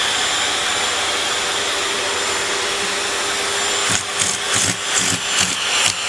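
Vacuum cleaner running, its hose nozzle drawing air with a steady rushing sound and a steady whine. From about four seconds in, the rush wavers and pulses irregularly.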